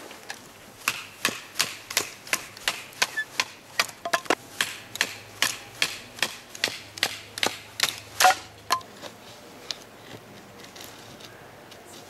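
A rapid, even series of sharp taps, about three a second for some eight seconds, stopping about nine seconds in.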